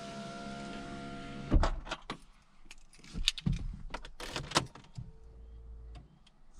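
A car's steady electric whir ends in a clunk about a second and a half in, followed by a run of scattered clicks and knocks.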